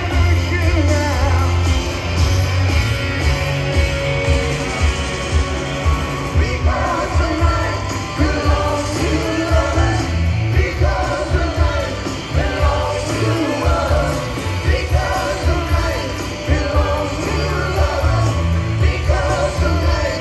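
A live rock band playing loud through an outdoor concert sound system, heard from within the audience, with heavy bass and drums under the melody.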